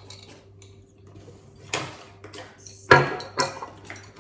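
Dishes and utensils clattering as food and containers are handled at the table: a few scattered knocks and rustles, the sharpest about three seconds in.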